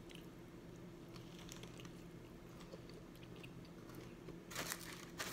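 Close-up chewing of a mouthful of gyro: faint mouth clicks over a low steady hum, with a louder burst of crunching near the end.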